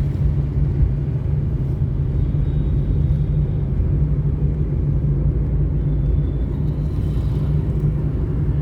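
Steady low engine drone and road rumble of a motor vehicle, unchanging throughout.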